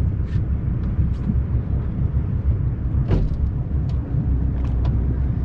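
Motorboat engine running at low speed, a steady low rumble, while the boat begins pulling a tow tube.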